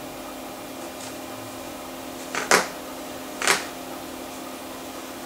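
Hard drive of a Macintosh Plus under a surface test, spinning with a steady hum, with two loud brief clatters of head seeks about halfway through and again a second later.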